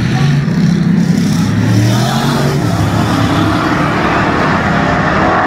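A pack of dirt-track race cars running hard on the oval, their engines a steady loud din whose pitch rises and falls as the cars pass and get back on the throttle.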